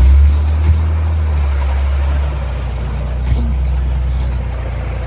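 Off-road vehicle's engine running with a low, steady rumble as it crawls along a rough trail. It is louder at first and eases a little after about two seconds, with two short knocks along the way.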